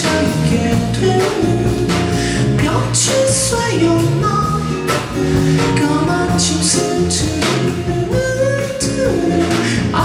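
Live acoustic rock performance: a male lead vocalist sings a melody into a microphone over acoustic band accompaniment with a steady beat.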